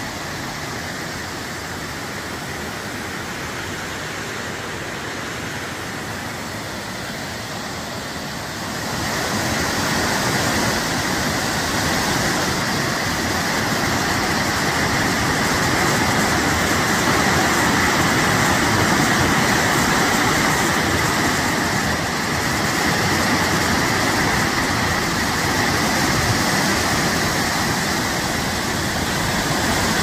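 Steady rush of a waterfall cascading over rock ledges, stepping up louder about nine seconds in.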